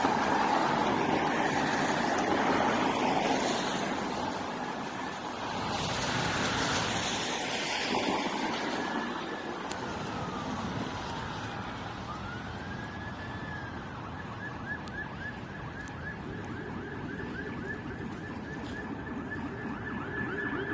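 Road traffic noise, then an emergency vehicle siren: slow rising and falling wails from about the middle, switching to a fast yelp for the last third.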